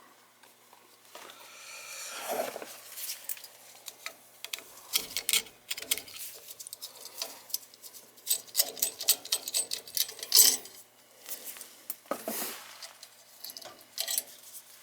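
Clinks, taps and rattles of metal hand tools and parts being handled, in quick, irregular clusters.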